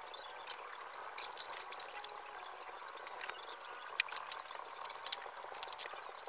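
Crisp snaps and squeaks of a fresh banana blossom's tough outer bracts being peeled back and broken off by hand: irregular sharp clicks several times a second, the loudest about four seconds in.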